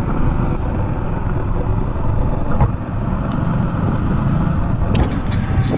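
Motorcycle running under way, heard from the rider's seat as a steady rumble, with a few light clicks near the end.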